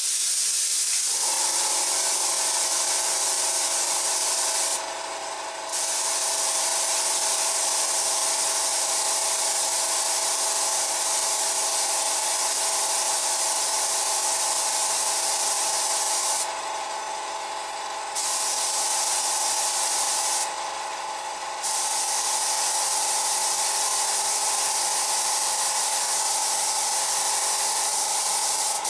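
Airbrush spraying paint in a steady hiss, broken three times by short pauses as the trigger is let off. A steady hum runs underneath from about a second in.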